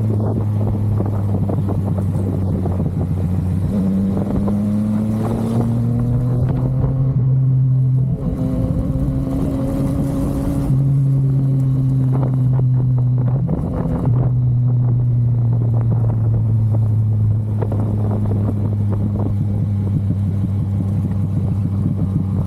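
Yamaha MT-09's three-cylinder engine running under way, its pitch climbing through the first half with short breaks about 8 and 14 seconds in, then settling to a steadier, slowly falling note. Wind rushes past the microphone for a few seconds in the middle.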